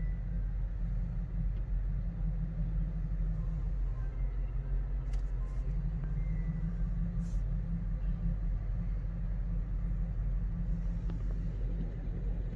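Steady low rumble of a car's engine and road noise heard from inside the cabin as it creeps through slow traffic, with a couple of faint clicks about five and seven seconds in.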